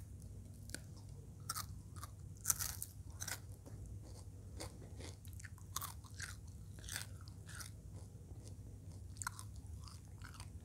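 Close-up chewing of fried eel in balado chili sauce: irregular crisp crunches and bites, the loudest about two and a half seconds in.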